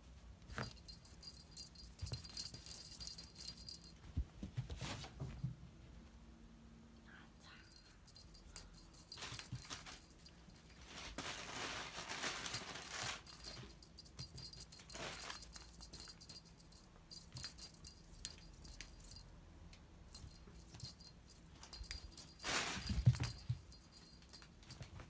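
A cat playing fetch with a thrown cat-teaser toy: the toy jingles and rattles as it is tossed and carried, with rustling in the middle and a loud thump near the end.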